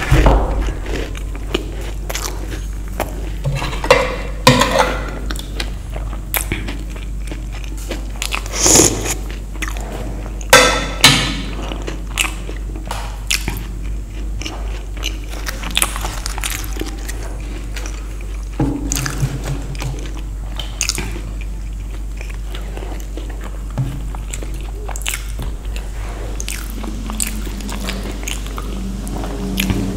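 A person eating crisp fried Indian street snacks close to the microphone, biting and chewing with sharp crunches every few seconds. The loudest crunches come about 4, 9 and 11 seconds in.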